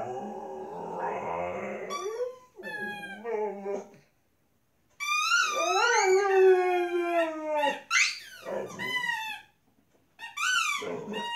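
Pit bull howling and whining in a string of drawn-out, wavering calls with short breaks between them. The longest call starts about five seconds in, lasts nearly three seconds and slowly falls in pitch.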